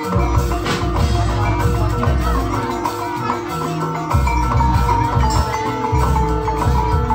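Live Javanese jaranan ensemble music: drums beating continuously under ringing metallophones and a held, high melodic line.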